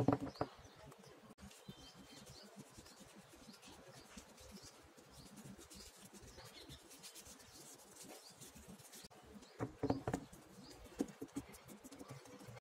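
A metal spoon scraping and knocking against a steel tin while smoothing a thick mixture, once at the start and again about ten seconds in. Small birds chirp faintly in the background throughout.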